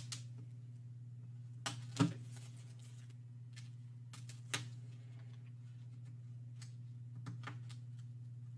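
A few light clicks and taps from a plastic spudger and gloved fingers pressing the display flex-cable connectors on an opened iPhone's logic board, about five spread over several seconds, the sharpest about two seconds in. A steady low hum runs underneath.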